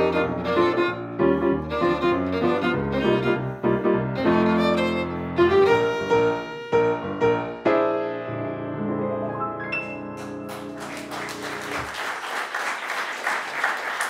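Jazz violin and piano playing quick runs, then closing on a held final chord that stops about twelve seconds in. Applause starts just before the music ends and carries on.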